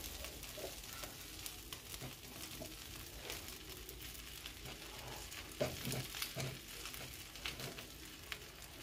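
Oil sizzling quietly with many small crackles under an egg and potato omelette frying in a pan. A few times, most clearly about two-thirds of the way in, a metal spatula scrapes as it lifts the omelette's edge to check whether the underside is done.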